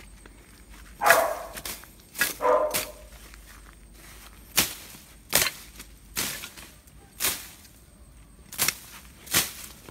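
A machete slashing through weeds and grass, about six quick swishing strokes in the second half. Early on, two louder cries that fit a dog barking.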